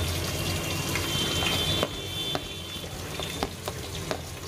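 Chopped onions and beans frying in oil in a pressure cooker with a steady sizzle. A steel spoon clinks a few times against the plate and pan as peas are scooped in.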